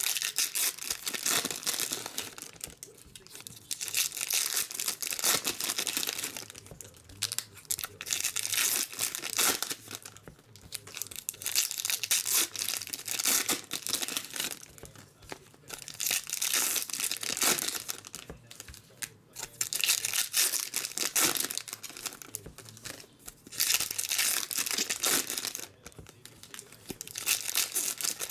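Foil trading-card pack wrappers crinkling and tearing as packs are opened by hand, in repeated bursts every few seconds.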